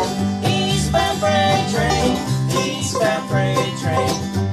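Acoustic bluegrass jam played live: banjo picking quick rolls over strummed acoustic guitar, with an upright bass holding a steady alternating bass line.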